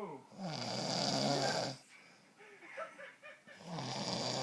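A man snoring in his sleep: two long snores about three seconds apart, the first about half a second in, the second near the end.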